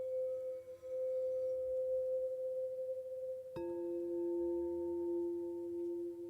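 Quartz crystal singing bowls ringing with long, steady pure tones. About three and a half seconds in, a bowl is struck and a lower tone rings out strongly over the fading higher one.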